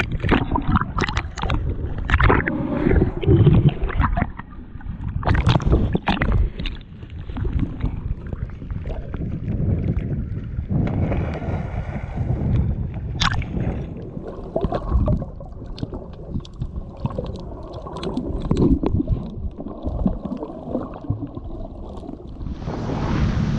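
Water sloshing and gurgling against an action camera held underwater by a snorkeler, with frequent knocks and splashes as it moves. The sound is dull and muffled, missing its upper range, and briefly opens up when the camera breaks the surface about halfway through.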